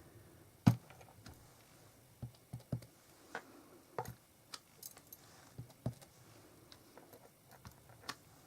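A snowflake stamp on its block being inked and pressed down onto card again and again, giving irregular light taps and clicks, about a dozen, the loudest less than a second in.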